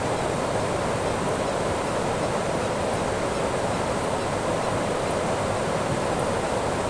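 Steady rush of flowing river water: an even, unbroken hiss.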